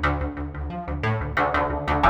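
Background music: an electronic track with a steady, driving beat of about four strikes a second over sustained synth notes.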